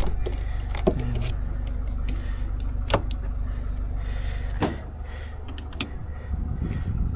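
Starter motor slowly cranking the Talbot Express van's engine on a jump booster too weak for it, without the engine catching. The cranking stops about four and a half seconds in, with a few sharp clicks along the way.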